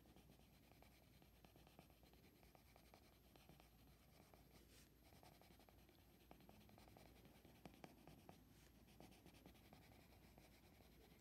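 Faint scratching of a Derwent Coloursoft coloured pencil shading on paper in light, gentle strokes, with many small irregular ticks.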